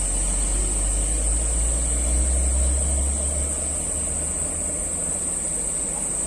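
Deep, steady engine rumble of a large ro-ro ferry's engines during berthing, swelling in the first few seconds and then easing off. A steady high-pitched whine runs above it.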